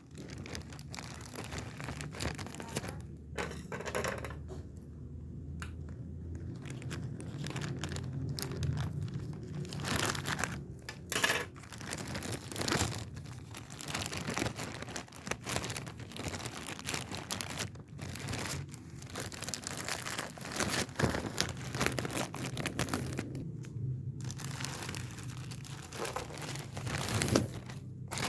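Parcel packaging being handled and torn open by hand: irregular crinkling and tearing rustles with sharp clicks, over a steady low hum.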